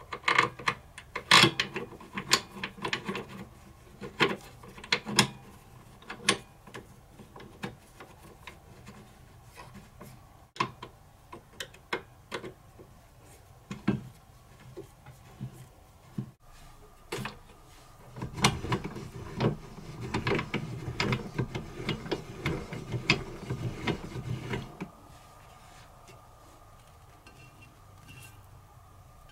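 Metal cam lever being turned by hand in a drill press's table-locking clamp: a run of sharp clicks and knocks as it is threaded in and repositioned, then several seconds of denser scraping and rubbing about two-thirds of the way through.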